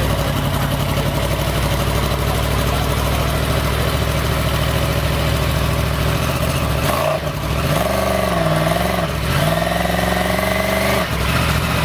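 Inline-four superbike engine idling steadily, then revved about eight seconds in and held at raised revs for about three seconds before dropping back to idle.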